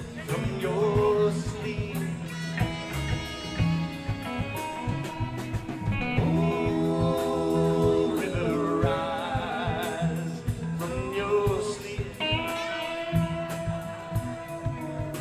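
A live band plays, with a man singing long, wavering vocal lines over electric guitar, bass and drums.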